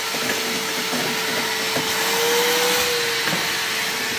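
Shop vacuum running steadily, sucking up concrete-block dust left from drilling through the wall, with a steady hum whose pitch rises a little past the middle and settles back.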